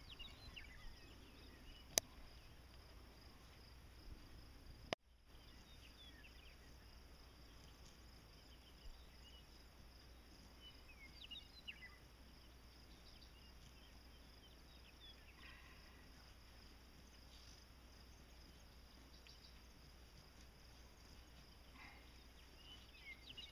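Faint outdoor quiet with a steady high insect trill running throughout and a few faint scattered chirps. There is one sharp click about two seconds in, and the sound cuts out for a moment about five seconds in.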